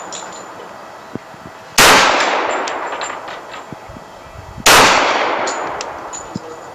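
Two pistol shots from a Dan Wesson Valor 1911, about three seconds apart. Each ends in a long fading echo and is followed by a few light ticks.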